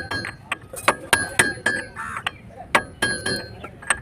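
Hammer striking a steel socket used as a drift, driving a wheel hub bearing into the disc-brake hub: a quick, uneven series of sharp metal-on-metal blows, about two to three a second, each with a short ringing tone.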